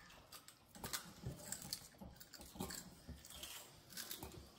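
A few faint, irregular taps and knocks of crushed garlic cloves being scraped off a wooden cutting board with a chef's knife and dropped into a glass jar.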